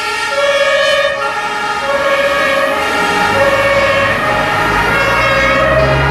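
German two-tone emergency siren (Martinshorn) on a fire brigade command vehicle, alternating steadily between a higher and a lower note about every three quarters of a second. From about halfway a low vehicle rumble grows louder beneath it.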